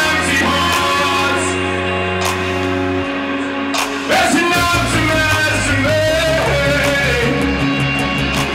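Live band playing a song: electric guitar, drums and a sustained low bass line under sung vocals.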